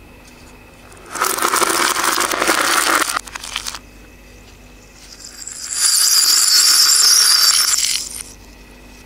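Tiny glitter bottles clattering together in a heap for about two seconds, then, a few seconds later, a pile of small coloured metal jingle bells jingling for about two seconds.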